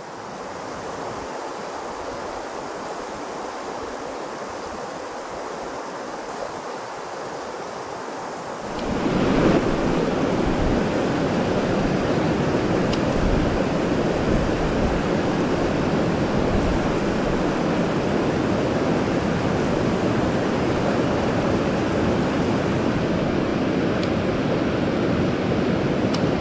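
Rushing water of a mountain stream, a steady hiss that turns louder and deeper about nine seconds in.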